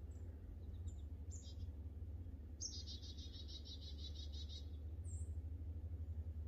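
A small songbird's rapid, even trill lasting about two seconds, starting about two and a half seconds in, with a few short, very high call notes before and after it, over a steady low rumble.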